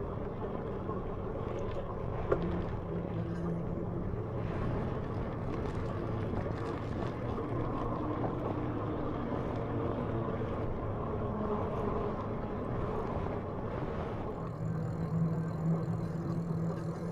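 Lectric XPEAK 2 e-bike in motion: steady tyre and wind noise with a low hum that grows a little stronger near the end. A single sharp click about two seconds in.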